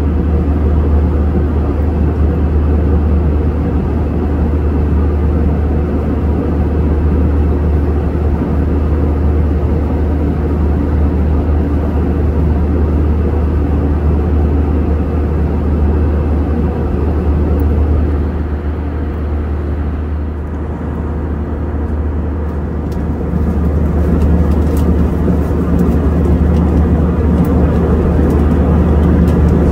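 Steady deep rumble and rushing air noise inside a jet airliner's cabin in flight, from the engines and the airflow. It eases slightly about two-thirds of the way through, and a few faint clicks come near the end.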